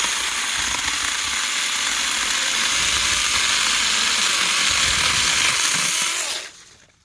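A 4-inch cordless electric mini chainsaw runs and cuts through a branch, a loud, steady, hissing chain noise. It starts suddenly and stops about six seconds in.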